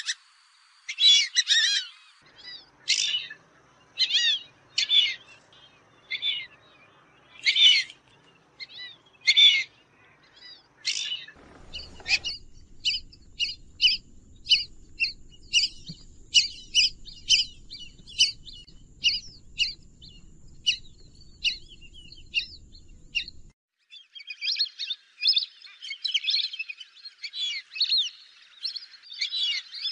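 Fulvous whistling ducks giving high, squeaky whistled calls. At first single calls come about once a second. From about twelve seconds in they come quicker over a low rumble, and near the end many birds call over each other.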